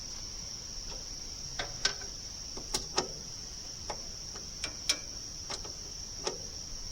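Scattered sharp knocks of a Bowie knife striking wood, irregular and woodpecker-like, some coming in quick pairs. A steady high insect drone runs underneath.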